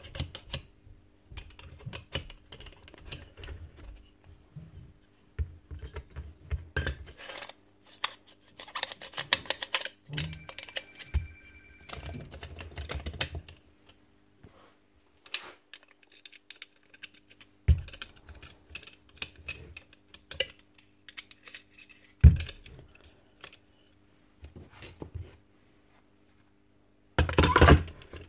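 Irregular clicks, taps and rattles of metal and plastic gas staple gun parts being handled and fitted together during reassembly, with a sharp knock about two-thirds of the way through and a louder clatter near the end as the plastic outer housing is pushed on. A faint steady hum runs underneath.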